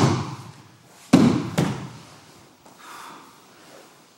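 A body hitting a dojo mat in an aikido throw and breakfall: a hard impact about a second in, a smaller thud just after, then quieter scuffing on the mat.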